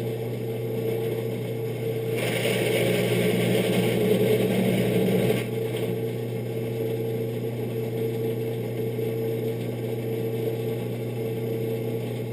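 Electric shop tool running with a steady motor hum; from about two seconds in, for about three seconds, a louder hissing cutting noise as it works the metal part.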